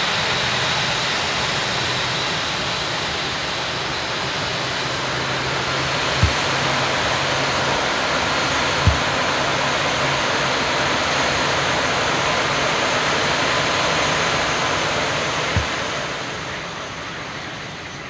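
Airbus A380's jet engines in reverse thrust during the landing rollout on a wet runway: a steady roar mixed with the hiss of water spray, easing off about sixteen seconds in as the aircraft slows. Three brief low thumps come through the noise.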